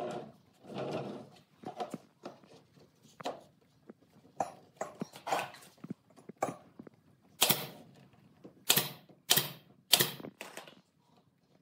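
Knocks and clatter of a plastic crate being pushed into a wooden frame, then a pneumatic nail gun firing four loud, sharp shots in the second half.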